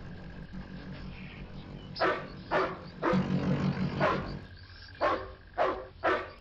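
Dog barking in short, sharp barks, about six, starting about two seconds in, the later ones about half a second apart. Under the first barks a low steady motorcycle engine runs, and it stops about two thirds of the way through.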